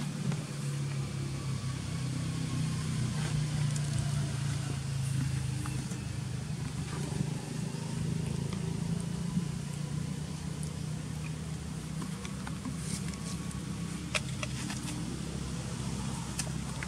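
Steady low engine hum, like a motor vehicle running, with a few faint clicks scattered through it.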